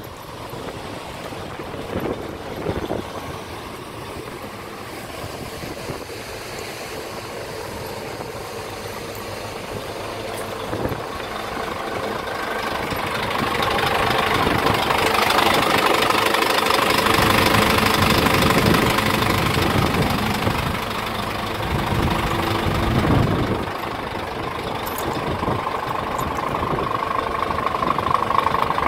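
Scania P410 tipper truck's diesel engine idling steadily, louder through the middle stretch and easing again toward the end.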